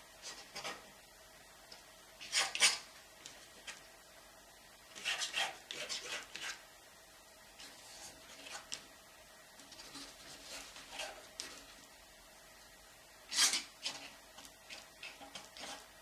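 Bristle brush scraping and rubbing oil paint onto the painting surface in short, scratchy strokes with pauses between, the strongest about two and a half seconds in, around five to six seconds in, and near the end.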